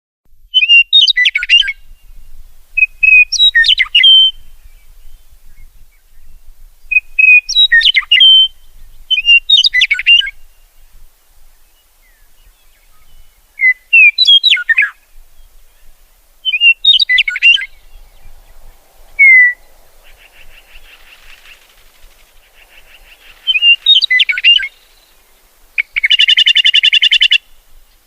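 Songbird singing short, varied whistled phrases, each about a second long, repeated every few seconds. A faint buzzy call sounds in the later part, and a loud, harsh buzzing trill comes near the end.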